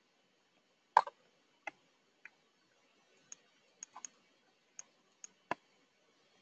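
Sparse, irregular light clicks at a computer keyboard and mouse, about ten over several seconds, the sharpest about a second in.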